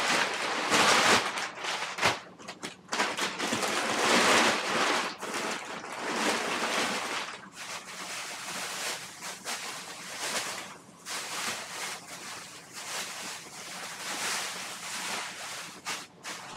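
Crumpled brown kraft packing paper rustling and crinkling as it is pulled out of a cardboard box by hand, with a plastic bag rustling; loudest in the first several seconds, then softer.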